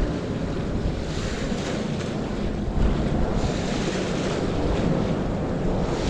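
Steady rushing of river water spilling over a steel weir gate, with wind buffeting the microphone.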